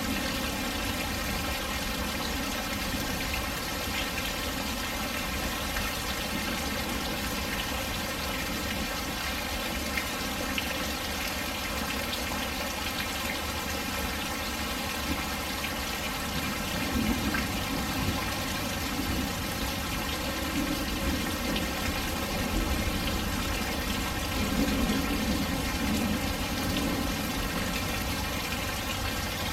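Steady rain falling, with a few sharper raindrop ticks. A low rumble swells briefly twice, about halfway through and near the end.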